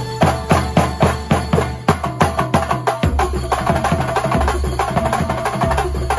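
Kuntulan music: a percussion ensemble of drums beating a fast, steady rhythm of about three to four strokes a second. A little past halfway the texture thickens, with a steady pitched tone joining the drums.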